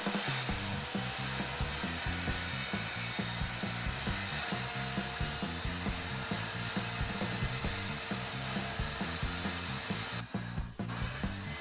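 Power saw cutting through a sheet of 18 mm plywood, running steadily with a brief break near the end.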